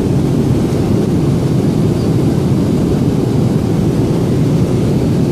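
Steady low roar of cabin noise inside a Boeing 777-300 airliner in cruise: engine and airflow noise heard from a passenger seat.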